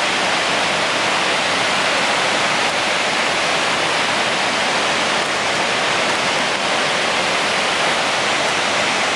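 Waterfall: falling water makes a loud, steady, unbroken rush.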